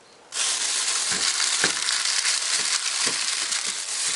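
Thin plastic carry bag crinkling and rustling as hands handle and open it, starting suddenly about a third of a second in, with a few soft thumps.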